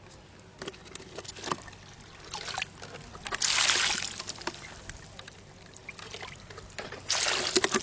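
Water gushing briefly twice, each for about a second, once midway and again near the end, with scattered small knocks and clicks between.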